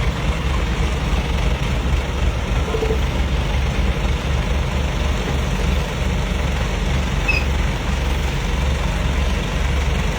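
Heavy diesel engine idling steadily, a continuous low rumble.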